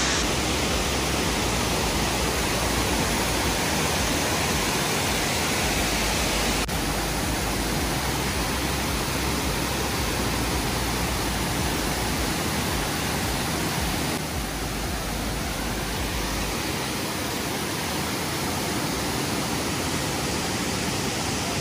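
Steady rushing of Mossbrae Falls, many thin spring-fed cascades pouring off a mossy cliff into fast river rapids over rocks.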